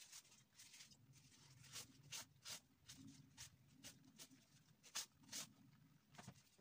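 Faint, irregular scratchy rustling of a tissue wiped and dabbed across a textured painted canvas, a few quick strokes a second, over a faint low hum.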